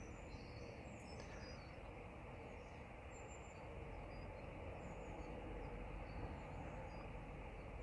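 Faint open-air ambience: a steady low hiss with scattered short, high bird chirps from birds somewhere off in the distance.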